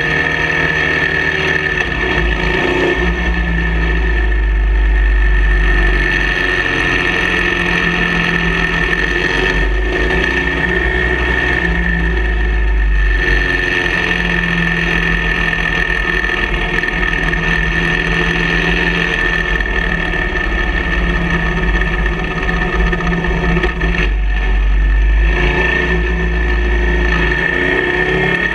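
Touring motorcycle's engine running at road speed on a twisting road, its note shifting as the throttle opens and closes through the curves, under heavy wind rumble on a fork-mounted camera's microphone.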